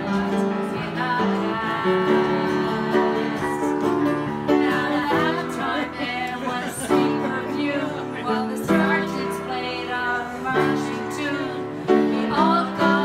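A group of voices singing a song along to an upright piano and a strummed acoustic guitar, the chords changing every second or two.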